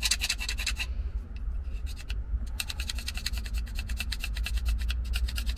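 A knife scraping a magnesium rod in quick, even strokes, several a second, shaving magnesium off onto tinder for a fire. The scraping breaks off briefly about a second in and again around two seconds in.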